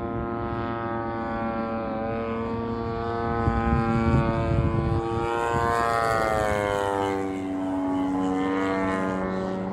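Radio-controlled Pitts biplane model flying overhead, its engine and propeller running steadily. Its pitch climbs about five to six seconds in, then falls away. A gusty low rumble runs for a second or two partway through.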